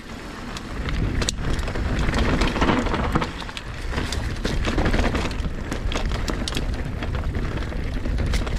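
Mountain bike riding down a rocky trail: a steady noisy rush of tyres over dirt and rock, with frequent sharp clicks and rattles from the bike. It gets louder about a second in.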